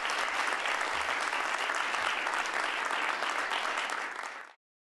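Audience applauding, a dense run of many hands clapping that cuts off suddenly near the end.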